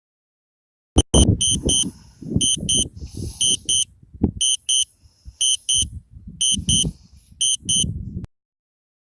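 Electronic warning beeper sounding short high beeps in pairs, about one pair a second, over wind rumbling on the microphone; the sound cuts in about a second in and cuts off abruptly near the end.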